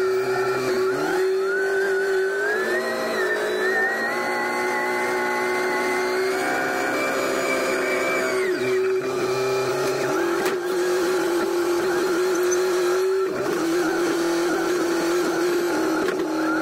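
SkyTrak telehandler engine running under throttle as the boom lowers a bundle of metal building parts. The revs rise about two and a half seconds in, hold with a climbing whine, then drop back about eight and a half seconds in.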